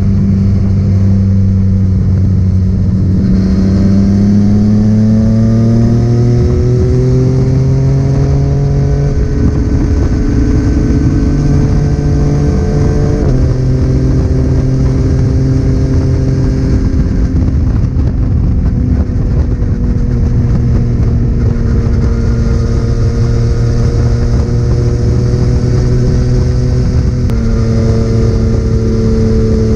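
Yamaha inline-three motorcycle engine on a Scorpion full-system exhaust, riding on the road. Its note climbs for several seconds under acceleration, drops at a gear change about thirteen seconds in, then runs steadily and steps up again near the end, with wind rush on the microphone.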